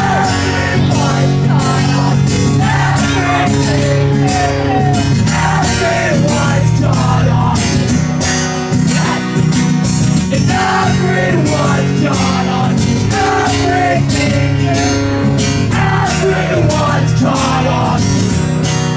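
Live acoustic guitar strummed steadily under singing voices, loud and close to the recording phone.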